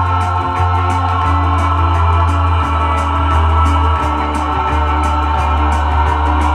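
Organ-led instrumental music playing from a vinyl LP on a turntable, with long held bass notes and a steady quick beat.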